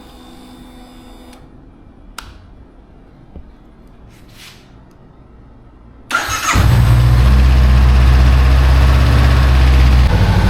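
Motorcycle engine being started after maintenance, with a click a couple of seconds in. It cranks briefly and catches about six seconds in, then idles steadily and loudly.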